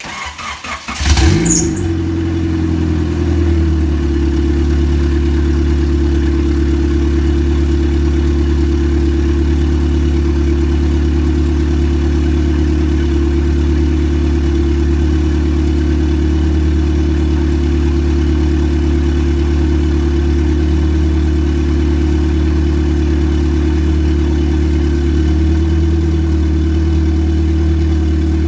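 Turbocharged Honda four-cylinder engine cold-started: a short crank, then it catches about a second in with a brief flare and settles into a steady idle.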